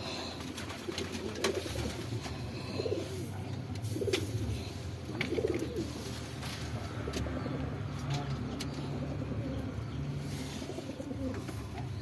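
Birds cooing: low, warbling coos a second or two apart over a steady low hum.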